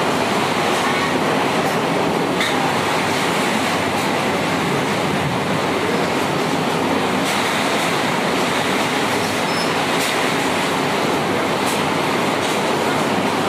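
Heavy downpour: a steady, dense hiss of rain, with faint sharp ticks of drops striking close by now and then.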